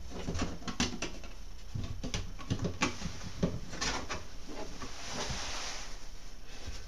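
Hands pressing and rubbing a plastic access panel into construction adhesive on a wall, with irregular light taps and clicks and a soft rubbing swish about five seconds in.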